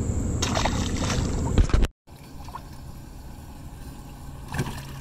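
A rushing noise that cuts off abruptly about two seconds in. Then a quieter steady low hum, with a short splash of water a little after four seconds as a hand reaches into a bass boat's livewell.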